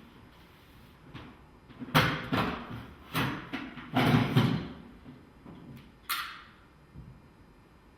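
Renault Grand Scenic rear seat being lifted: a series of clunks and rattles from the seat and its latch, the loudest about four seconds in, then a sharper click near six seconds.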